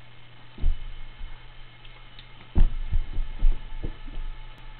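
Dull thumps of a small child stomping, jumping and tumbling on a carpeted floor, about six in a few seconds, the loudest a little past halfway, over a steady low hum.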